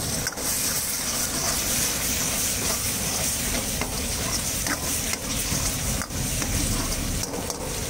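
Chicken 65 pieces sizzling in a thick sauce in a metal wok while a metal ladle stirs and scrapes through them. A steady frying hiss with a few short scrapes of the ladle against the pan.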